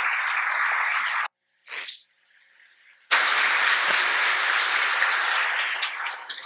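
Audience applauding. The sound cuts out abruptly about a second in, leaving near silence for about two seconds, then comes back as strongly until near the end.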